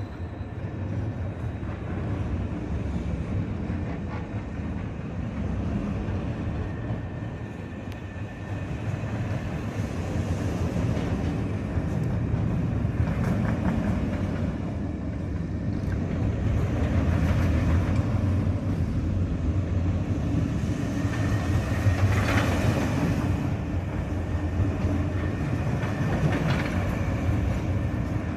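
Mack Rides spinning coaster car running along its steel track on a test run: a continuous rolling rumble of wheels on the rails that swells and fades as the car passes, with brief rattles and clatter.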